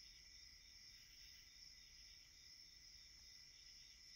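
Near silence: faint room tone with a steady, faint high-pitched whine.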